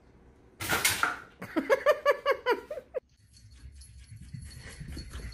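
Pop-up toaster popping with a sharp, loud clatter about half a second in, followed by a quick run of high-pitched voiced calls that stops abruptly about three seconds in.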